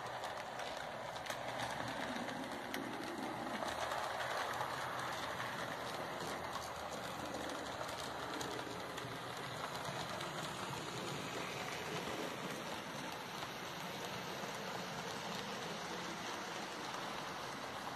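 A model railway tank locomotive hauling coaches on the track: the steady running of its small DC motor, fed by pulse-width modulation, and its wheels on the rails, with faint scattered clicks.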